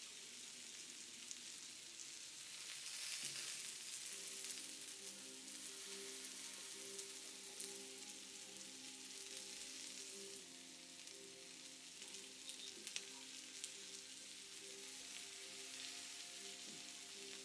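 Meat sizzling and crackling on a hot tabletop grill, a steady spitting hiss with small pops, under soft instrumental background music.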